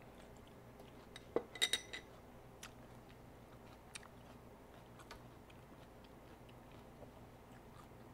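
A short cluster of clinks about a second and a half in: a bowl and chopsticks being set down on the counter, with a brief ring. A few faint ticks follow.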